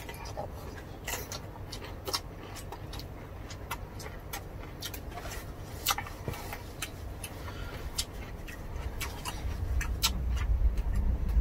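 Close-up eating sounds: chewing, with scattered sharp crunches and mouth clicks, from a meal of roast pork, rice and raw cucumber eaten by hand. A low rumble builds near the end.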